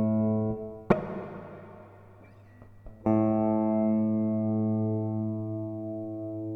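Guitar chords played through a DigiTech Polara reverb pedal on its plate setting. A sharp muted strum about a second in leaves a fading reverb wash. About three seconds in a new chord is struck and rings on, slowly fading.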